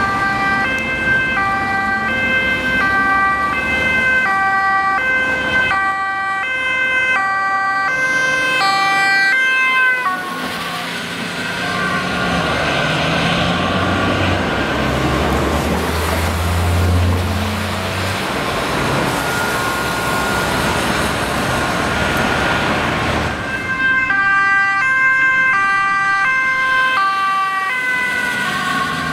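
Ambulance's two-tone siren alternating between a high and a low pitch. About ten seconds in it gives way to traffic and engine noise, with a low engine drone partway through, and the siren returns loudly a few seconds before the end.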